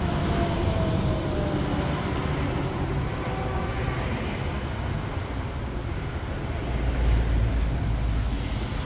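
Road traffic noise: a steady low rumble, with a passing vehicle's faint falling tone in the first couple of seconds and the rumble swelling about seven seconds in.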